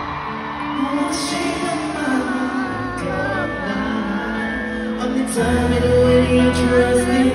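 Live pop music played through an arena sound system: a boy band singing over held chords, recorded from the crowd.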